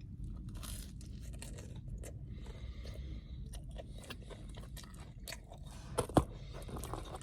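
Close-up chewing and crunching of cheesy garlic bread with a crisp crust, a run of small irregular crunches, with one sharper click about six seconds in.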